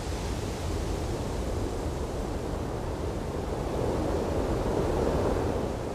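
A steady rushing noise with no tones in it, growing louder about four seconds in and easing just before the end.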